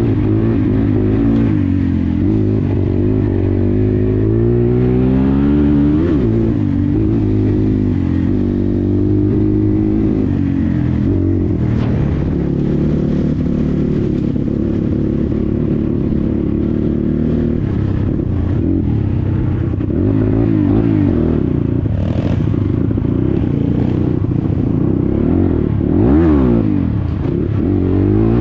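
250 cc dirt bike engine running under load on a rough track, its pitch rising and falling over and over as the throttle opens and closes. Loose stones clatter under the tyres throughout.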